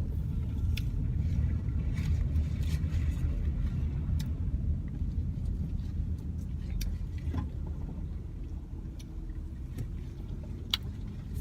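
Car engine and road noise heard from inside the cabin while driving: a steady low rumble, with a few faint clicks.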